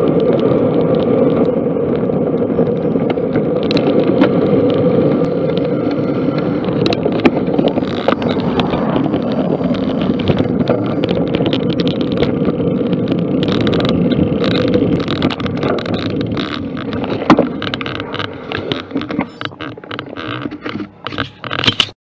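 Wind rushing over the microphone of a camera riding on a moving bicycle, mixed with tyre noise on tarmac. About two-thirds through it eases and turns uneven, with a sharp knock about three-quarters through, and it cuts off abruptly at the very end.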